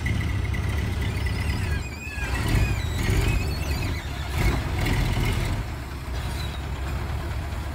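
Diesel engine of a loaded Hino dump truck running low and steady as the truck creeps over loose dirt, swelling louder a couple of times in the middle.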